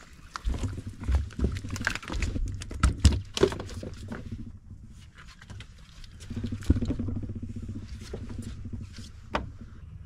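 Irregular knocks, taps and low thumps against a bass boat's deck as the angler moves and handles gear, busiest in the first few seconds with one sharp knock near the end, over a low rumbling noise.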